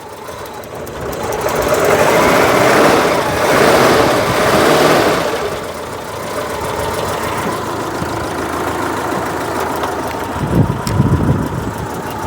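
Citroen GSA's air-cooled flat-four engine, freshly started after a struggle, is blipped twice with the throttle, then settles to a steady idle. A few sharp clicks come near the end, where the engine is leaking spark from its worn HT leads.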